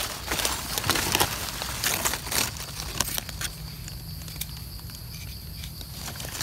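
Dry leaf litter rustling and crackling under hands as a small mushroom is cut and picked. A run of sharp crackles comes in the first half, then quieter handling, with a faint steady high tone behind it.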